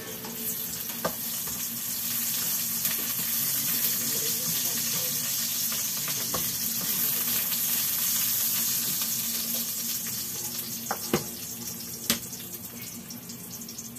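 Oil and sauce sizzling in a frying pan on a gas burner while a spatula stirs it, with a few sharp knocks of the spatula against the pan, two of them near the end.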